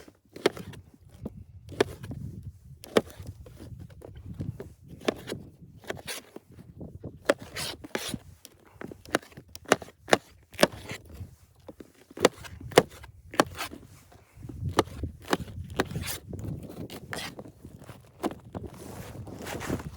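An irregular series of sharp knocks and clicks, one to three a second, with scraping and rubbing in between.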